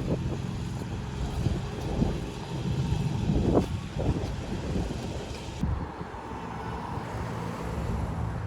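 A steady low engine hum with outdoor noise around it; the background changes abruptly a little past halfway.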